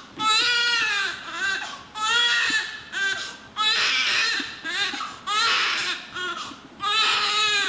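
Newborn baby crying hard: loud, high-pitched wails about a second long, one after another with short breaths between.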